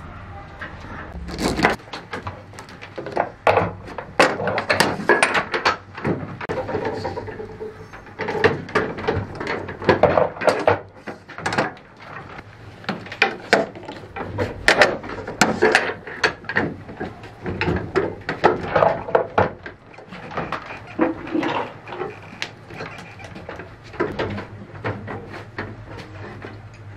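Workshop clatter from a hand-operated plastic injection press and its metal mould being worked: many irregular metal clicks and clanks, over a steady low hum.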